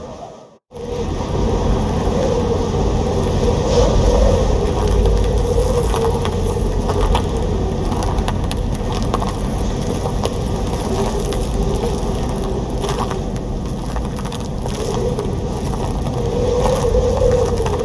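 Strong storm wind blowing in gusts, with a deep rumble and a wavering howl, and scattered rattling and knocking. It starts about half a second in.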